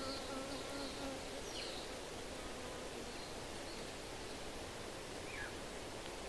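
Spring outdoor ambience: a steady breeze rustling through trees, an insect buzzing for about the first second, and a few faint bird chirps, two of them quick downward sweeps.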